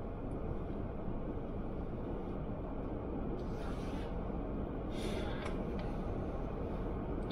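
Steady low rumble inside a car idling at a stop, with the hiss of cross traffic's tyres on wet, slushy pavement passing twice, about three and a half and five seconds in.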